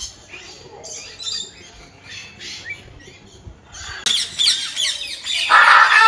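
Many aviary birds chirping and squawking. About four seconds in, the chorus turns much louder and denser, and near the end one loud, harsh squawk is the loudest sound.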